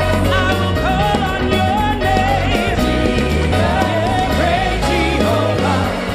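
Live gospel praise band and worship singers performing a Caribbean praise medley: lead and backing vocals with vibrato over bass, keyboards and a steady drum beat.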